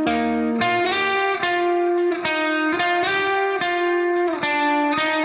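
Background instrumental music: a plucked guitar plays a melody, a new note about every half second, each note ringing on until the next.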